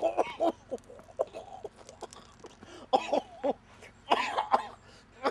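Several short bursts of wordless vocal sounds from a man's voice, a second or more apart.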